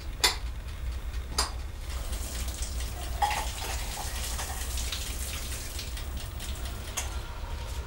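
Dishes clinking sharply twice, then a light crackling hiss with scattered clicks and one more clink near the end, over a steady low hum.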